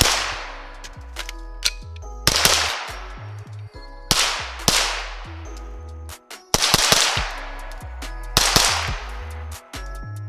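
Gunshots from a CZ Scorpion 9mm carbine, about eight in all, singly and in quick pairs a second or two apart, each with a long echoing tail. Under them runs music with a heavy bass line.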